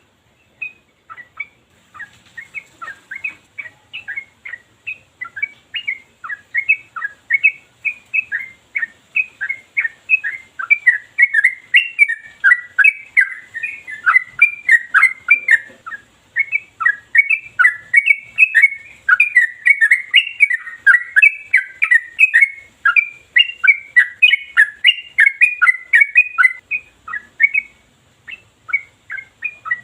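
Yellow-vented bulbul (trucukan) singing a long, unbroken run of quick, sharp chirping phrases, sparse at first and thinning again near the end. This is the nonstop rolling song that bird keepers call 'ropel'.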